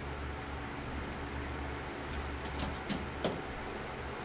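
Steady low hum of room noise, with a few small clicks and taps a couple of seconds in.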